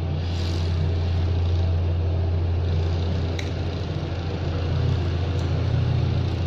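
A steady low mechanical hum runs throughout, with a couple of faint clicks about halfway through and near the end.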